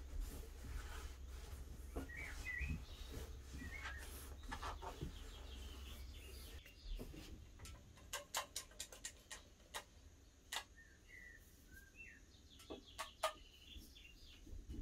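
Soft rubbing of a cloth over a bare cast-iron engine block in the first half, then a run of sharp clicks and ticks as a pump oil can squirts oil into the cylinder bores. Faint bird chirps come and go throughout.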